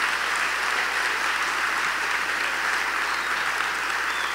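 Audience applauding steadily, a dense even clapping that holds at one level throughout.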